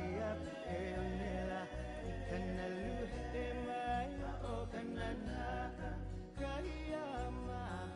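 Music with a singing voice and a steady bass line.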